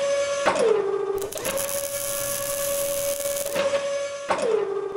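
Electronic logo-intro sound effects: a steady synthesized buzzing tone that drops in pitch twice, about half a second in and again near the end, with a bright hissing whoosh swelling through the middle.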